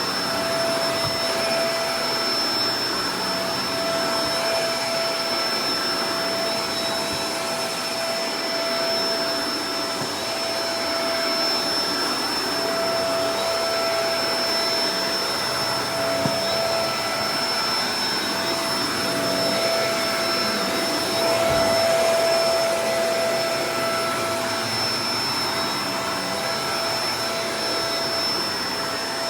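Shark Professional Powered Lift-Away DLX (NV586) vacuum cleaner running steadily: a rushing of air under a steady whine, briefly a little louder about three-quarters of the way through.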